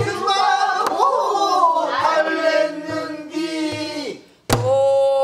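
Pansori singing in long, bending, held notes, accompanied by low strokes on a buk barrel drum played with a stick in jungmori rhythm. The voice breaks off briefly just after four seconds, then a sharp drum stroke lands and a new note is held.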